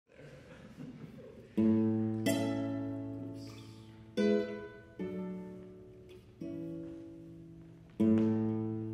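Classical guitar played solo: a slow series of six plucked chords, each struck sharply and left to ring and fade before the next. The first comes about a second and a half in, after faint room noise.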